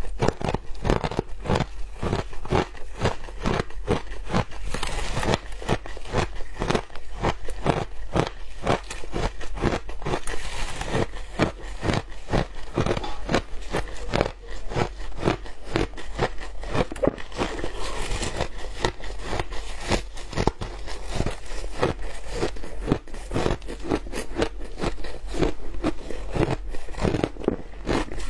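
Mouthfuls of purple shaved ice being bitten and chewed, heard as a continuous dense crunching with many sharp crackles a second.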